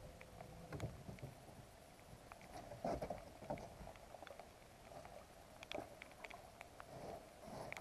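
Faint, scattered ticks and knocks over a low hiss, muffled by a sealed waterproof camera case.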